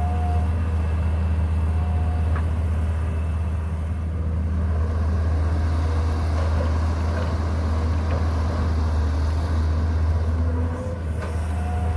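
Caterpillar 320GC excavator's diesel engine running with a steady low drone while working under load through a dig-and-load cycle, with a high whine for about the first half-second.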